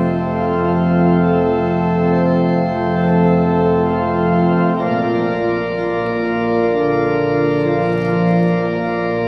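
Pipe organ playing slow, sustained chords over a held low bass note; the bass drops out and the harmony changes about five seconds in.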